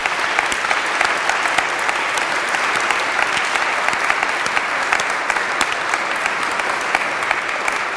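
Audience applauding: many hands clapping in a dense, steady wash of claps.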